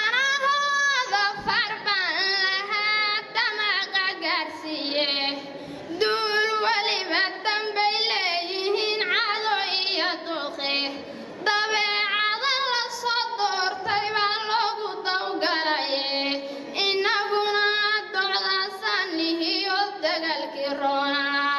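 A young woman's solo voice chanting a Somali gabay (traditional poem) in a sung, melodic delivery. It comes in phrases with short breaks and holds a long note near the end.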